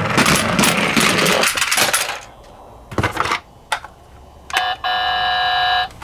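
A small die-cast toy ambulance rolls and clatters down a cardboard slope for about two seconds, then a few light clicks. Near the end a battery-powered toy ambulance gives a short electronic blip, then a steady electronic siren tone.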